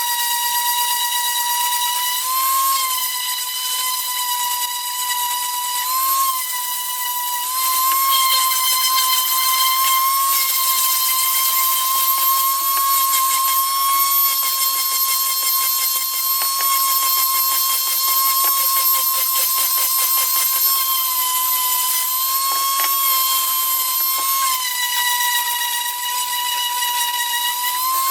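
Small high-speed power tool running steadily with a high-pitched motor whine, its pitch dipping slightly a few times.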